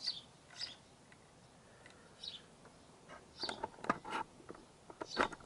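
A few light metallic clicks and scrapes as a small steel spring tab is handled and fitted over a motorcycle side stand's pivot bolt, with a quick cluster of them a little past halfway.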